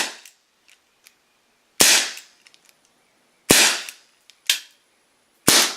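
Ruger Super Hawk CO2 BB revolver firing three shots, roughly two seconds apart. Each is a sharp, loud crack that trails off briefly. A lighter click falls between the second and third shots.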